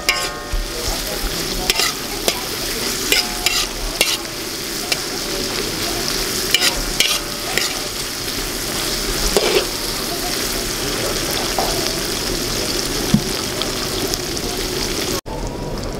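Sliced onions, garlic and dried chillies sizzling in oil in a large metal wok, with a metal spatula scraping and clicking against the pan as they are stirred. The sound breaks off abruptly near the end.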